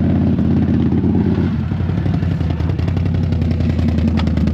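Side-by-side off-road vehicle's engine running at low speed. Its note drops about a second and a half in as the throttle comes off, and there is a light click near the end.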